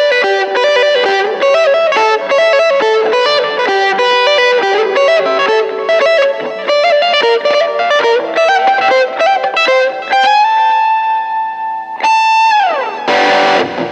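SQOE SEST250 electric guitar played through an M-VAVE Cube Baby effects unit: a fast lead run of single notes, then a long held note about ten seconds in. Near the end a high note slides steeply down, and a distorted chord is struck just before the end.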